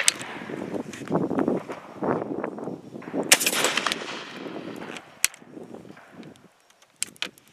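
Gunfire from a Snider Mk III rifle firing a .577 Snider Boxer cartridge. A sharp crack comes right at the start, and the loudest report comes about three seconds in.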